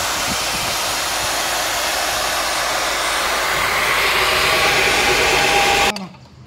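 Drill press boring a hole through a heavy-truck brake lining: a steady motor whir with the rasping of the bit cutting the friction material. It grows a little louder about four seconds in, then cuts off abruptly near the end.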